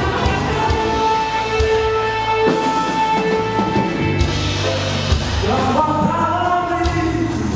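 Rock music with singing over a steady drum beat, with a long held note about one to four seconds in.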